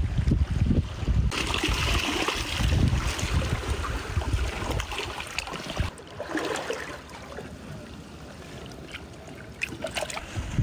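Water sloshing and trickling as a hand gropes in a shallow rocky tide pool and lifts a sea cucumber out. Wind buffets the microphone through the first half.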